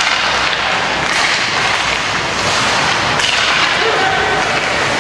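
Ice hockey play heard in a rink: a steady noisy din of skates on ice and the crowd, with occasional sharp cracks of sticks and puck.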